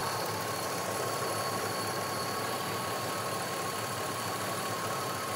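Chevrolet Silverado 1500 engine idling steadily, warmed up after a drive, with a faint steady whine over the running.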